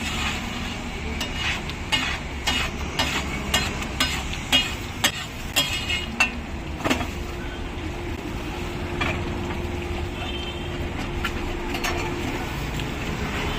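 Metal spatula clanking and scraping on a large flat iron tawa while a heap of masala is stirred and chopped, about two strikes a second, over a steady sizzle. The strikes thin out to a few scattered clanks after about seven seconds.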